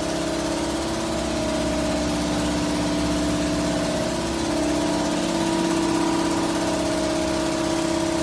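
Pit bike's small single-cylinder engine idling steadily through its aftermarket exhaust, its pitch shifting slightly about halfway through.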